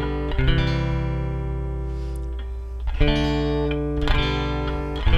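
Godin 5th Avenue archtop guitar strummed through a major-key chord progression, the 1-4-5 chords. Three chords are struck, about a third of a second in, at about three seconds and about a second later, and each is left ringing.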